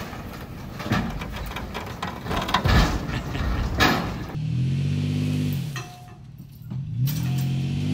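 Tilt-deck tow truck at work: a rumble with a few heavy knocks, then the truck's engine revving up and easing back down, twice.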